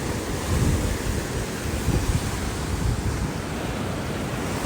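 Sea waves washing against the shore, with wind buffeting the microphone in a low, gusty rumble.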